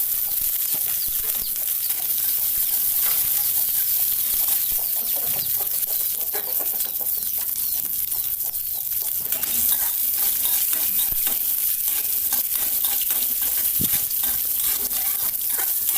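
Dried red chillies, chopped onion and curry leaves sizzling in hot oil with mustard seeds and chana dal as they are sautéed and stirred in the pan, with a steady sizzle and many small crackles.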